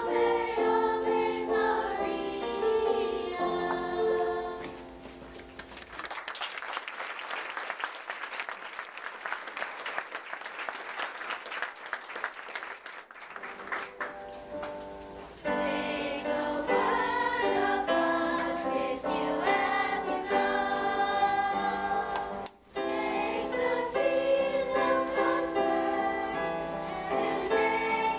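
Children's choir singing with keyboard accompaniment. The singing stops about five seconds in and is followed by about eight seconds of applause; then the choir and keyboard start another song.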